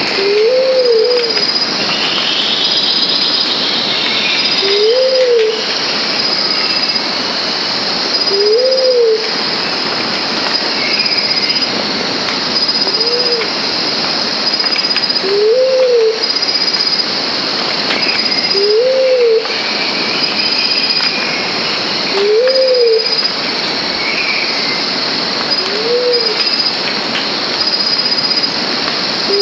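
Luzon bleeding-heart pigeon calling: a short, low coo that rises and falls, repeated about every three to four seconds, over a steady high hiss with a few faint higher chirps.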